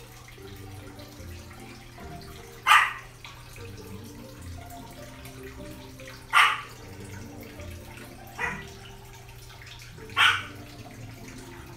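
A dog barking four times, short single barks a few seconds apart, over a steady low background hum.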